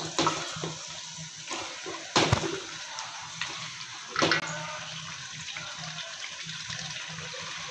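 Chicken in a spicy masala sizzling as it fries in a metal pot, with a spatula stirring and scraping through it. Louder spatula strokes come about two and four seconds in.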